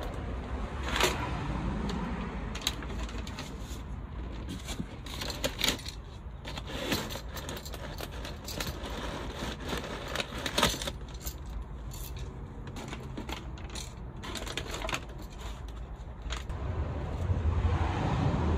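Scattered clinks and knocks of the train horn kit's horns and parts being handled and set down while they are unpacked. A low rumble builds near the end.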